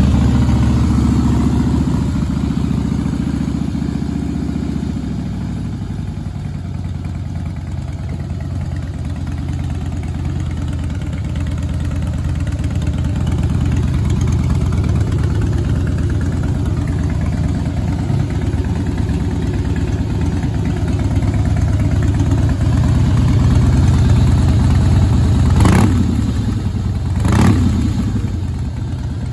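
2010 Harley-Davidson Softail Rocker C's Twin Cam 96 V-twin idling through a tuned Vance & Hines aftermarket exhaust, a little faster for the first few seconds after starting before it settles. Near the end come two quick throttle blips.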